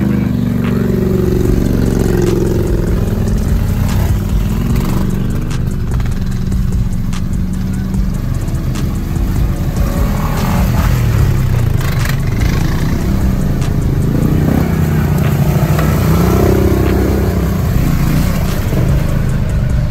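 Several ATV engines revving as the quads pass one after another, the engine pitch repeatedly rising and falling.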